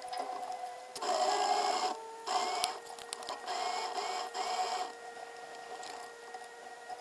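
Sailboat's electric anchor windlass running in four short bursts, its motor whine rising in pitch as each burst starts, over a steady mechanical hum.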